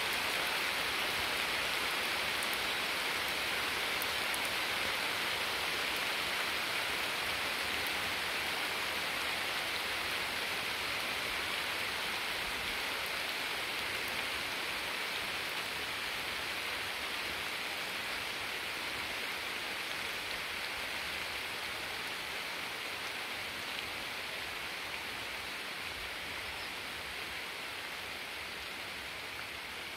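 Rain falling as a steady, even hiss that grows slowly quieter.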